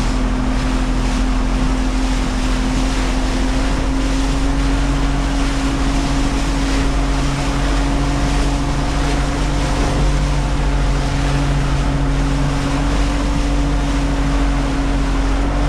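Small motorboat's engine running at a steady pitch while under way through choppy water, with water rushing by the hull and wind buffeting the microphone.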